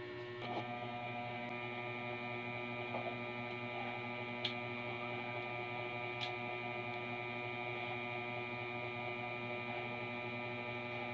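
Steady electrical hum made of several held tones, with two faint ticks around the middle.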